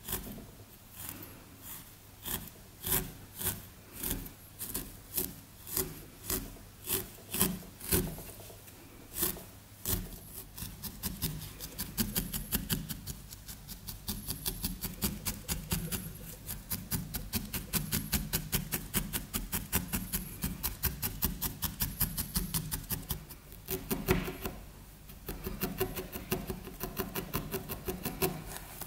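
A felting needle stabbing wool into a foam felting mat, over and over. The jabs come singly, about one a second, at first, then turn into a quick steady run of several a second from about ten seconds in, with a short break near the end.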